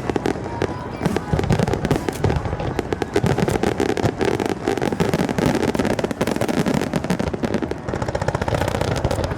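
Fireworks going off in a dense, continuous barrage of bursts and crackles, many sharp reports in quick succession.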